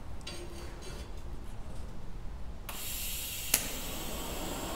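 TIG welding arc from an ESAB Renegade ET 300i inverter struck about halfway through: a sudden, steady hiss starts, with one sharp crack about a second later.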